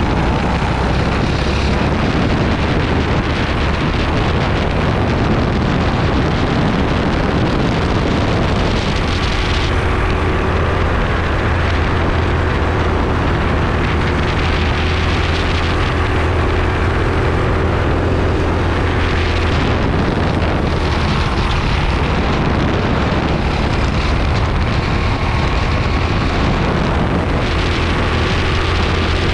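Racing kart's engine running hard through a lap, heavily buffeted by wind on the onboard microphone; its note climbs slowly along the straights and drops back several times for the corners.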